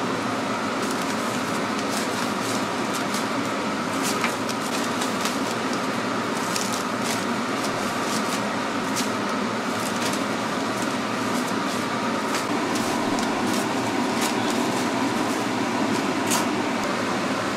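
Steady mechanical hum of kitchen machinery, fan-like, with scattered light clicks and scrapes from a spatula and paper as doughnuts are tossed in sugar.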